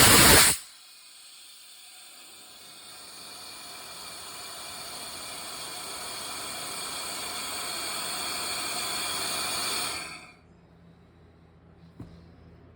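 Compressed air blowing out of an opened drain valve on a shop air compressor system: a sharp blast as it opens, then a steady hiss that grows louder for about nine seconds until the valve is shut about ten seconds in. The valve is being opened to purge the condensate water collected over about two hours of compressor use.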